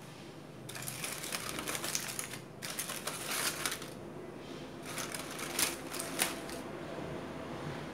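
Aluminium foil crinkling and crackling as it is handled and pulled open from around roasted beetroots, in two spells of rapid crackles with a few sharp snaps in the second.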